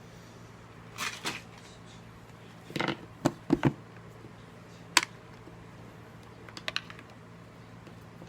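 Scattered light clicks and taps of small parts and tools being handled on a workbench, about seven in all, with the sharpest about halfway through, over a steady low hum.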